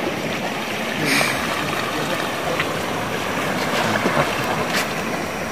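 Sea surf washing steadily on the shore, a continuous even rush.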